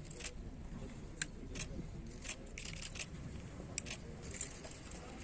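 Camera shutters clicking irregularly, about eight to ten single and paired clicks, over a steady low rumble.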